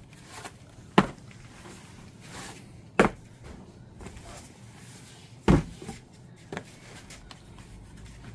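Boxes and packed items being handled and set down during unboxing: sharp knocks about a second in, three seconds in and five and a half seconds in, with a fainter one after, and rustling in between.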